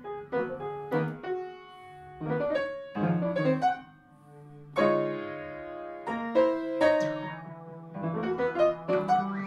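Background music: free-jazz piano playing loose chords and runs, thinning out briefly about four seconds in before picking up again.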